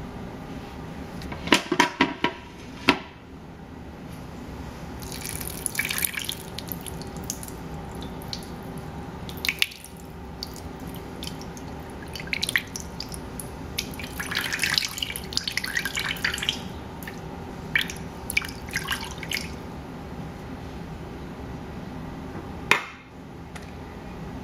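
Pineapple juice poured from a can into a slow cooker's stoneware insert over a ham, splashing and dripping in several pours. A few sharp clicks and knocks from handling the metal can come in the first few seconds.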